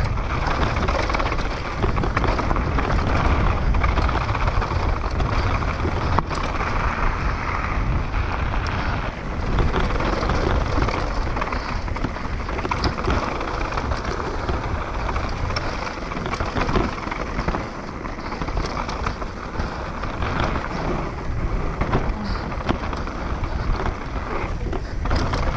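Downhill mountain bike ridden fast down a dirt trail: wind buffeting the camera microphone in a steady low rumble, with tyres rolling over the dirt and stones and the bike rattling in many small clicks and knocks.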